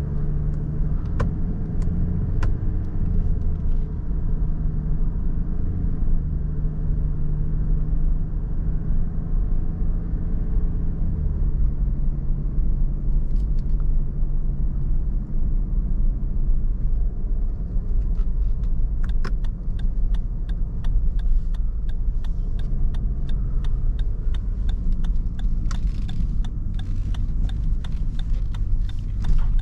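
Cabin noise of a Lexus LX500d on the move: a steady low hum from its twin-turbo V6 diesel over tyre and road rumble, with the engine tone changing pitch about twelve seconds in. Scattered sharp clicks and ticks come through, more often in the second half.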